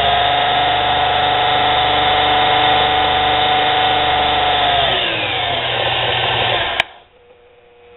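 Small bench lathe's brushed motor and belt drive running at speed with a steady whine, then winding down as the speed knob is turned down, from about five seconds in. A click near the end stops it, leaving only a faint electrical hum.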